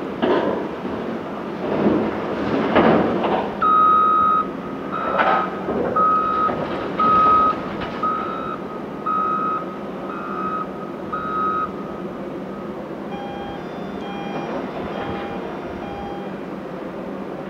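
Caterpillar 988K XE wheel loader backing away from a rock pile, its reversing alarm beeping about once a second over the running engine, after loud knocks and clatter of rock in the first few seconds. Near the end a second, lower-pitched reversing alarm beeps five times, a little faster.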